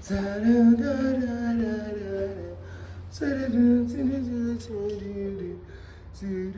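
A voice singing a slow pop/R&B melody in long held notes that slide between pitches, with a steady low hum underneath.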